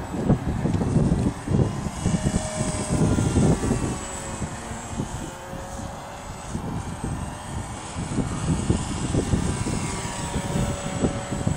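Radio-controlled model airplane's motor and propeller running in flight, a thin whine whose pitch drifts gently up and down, with wind gusting on the microphone.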